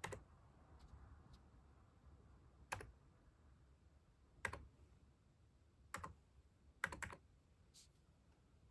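Computer keyboard keys pressed one at a time: about six separate clicks spaced a second or more apart, two of them in quick succession near the end.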